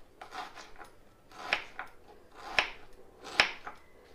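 Kitchen knife slicing an onion on a wooden chopping board: a series of cuts, each ending in a sharp knock of the blade on the board, roughly one a second.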